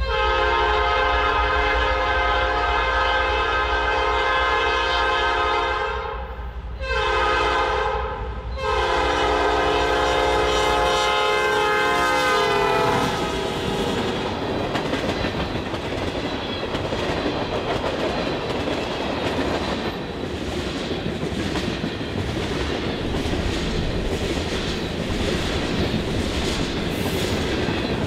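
Horn of a CN GE ES44DC diesel locomotive sounding a long blast, a short blast and another long blast over the engine drone. The last blast drops in pitch as the locomotive passes. The freight cars then roll by in a steady rumble, wheels clicking over the rail joints.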